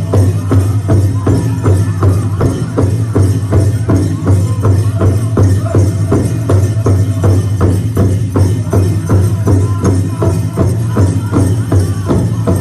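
Powwow drum group: a large hand drum struck in a steady, even beat, about three strokes a second, with voices singing over it.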